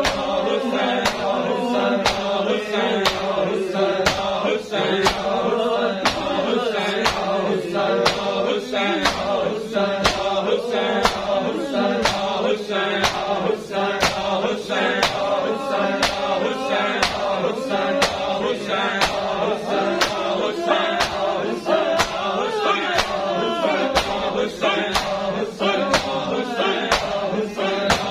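A group of men chanting a mourning lament (noha) in unison while beating their bare chests in time (matam). Palms slap on skin in a steady rhythm, about three slaps every two seconds, under the chant.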